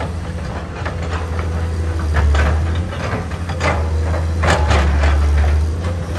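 Komatsu PC210 hydraulic excavator working: its diesel engine drones steadily while irregular clanks and scrapes come over it, the loudest about two seconds in and again around four and a half seconds in.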